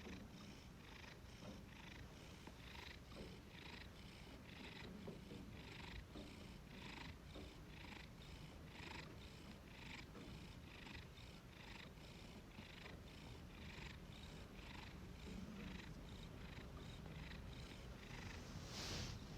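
Domestic cat purring softly and steadily, its breathy rasp pulsing about twice a second. A brief louder noise comes near the end.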